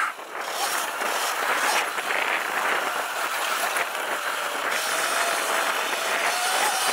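Electric dirt bike being ridden: a Sur-Ron Light Bee with a KO Moto Factory Spec motor and controller, under steady rushing wind noise. A faint electric motor whine rises slightly in pitch over the second half.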